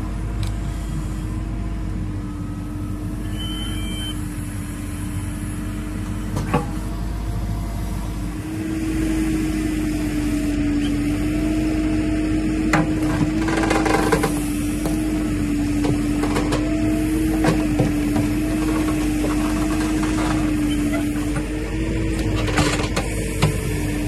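Backhoe digger's diesel engine running steadily with a droning tone, working harder and louder from about eight seconds in as the arm digs. Its bucket scrapes soil alongside a concrete tank, with scattered knocks and scrapes.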